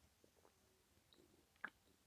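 Faint eating sounds of someone chewing a mouthful of rice and curry: a few soft mouth clicks, with one sharper click near the end.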